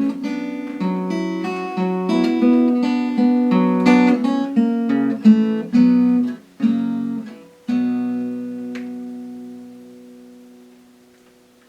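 Acoustic guitar ending of a folk song: picked and strummed chords for about seven seconds, then a final chord that rings and slowly fades away.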